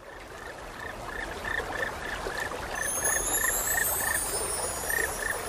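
Frogs croaking in a steady rhythm, about three croaks a second with a short break near the end, over flowing water that grows louder over the first two seconds. Faint high whistles slide upward through the second half.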